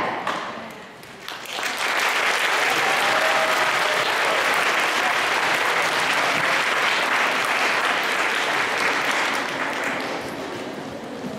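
Audience applauding, starting about a second and a half in and tapering off near the end.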